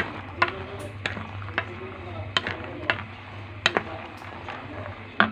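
Wooden spatula knocking against a metal pot while stirring peanuts frying in oil, with sharp irregular knocks about every half second over the steady sizzle of the frying oil.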